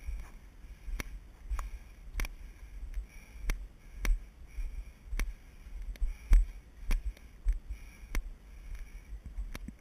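Footsteps hiking up a steep dirt trail, with a sharp click and a low thud from the body-worn action camera jostling at each step, about three steps every two seconds.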